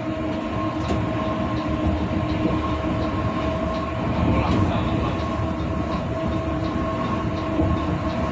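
Interior of a bus cruising at highway speed: steady engine drone and road rumble, with a constant hum.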